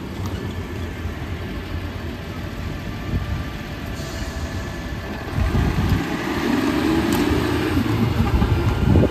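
Rear-loader garbage truck's engine pulling away and accelerating, with a low rumble that grows louder about halfway through as the truck gets under way.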